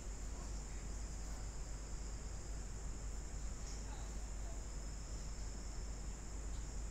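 Steady background noise with no speech: a low hum under a continuous high-pitched whine or trill.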